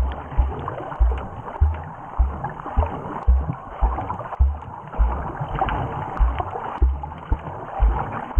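Underwater sound picked up by a GoPro Hero4 Session camera while snorkeling: a steady muffled water hiss with fine crackles, and dull low thumps about twice a second at slightly uneven spacing from the swimmer's movement in the water.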